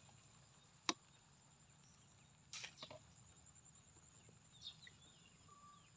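Near silence: faint outdoor background with one sharp click about a second in, a short rustle at about two and a half seconds, and a few faint high chirps near the end.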